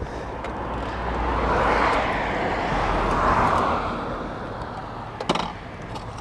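A road vehicle passing, its noise swelling and fading over about three seconds, then a sharp click about five seconds in.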